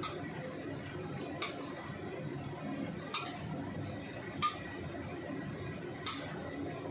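A metal ladle clinks against the side of a stainless steel wok while stirring vegetables: five sharp clinks, about one every second and a half, over a steady low rush.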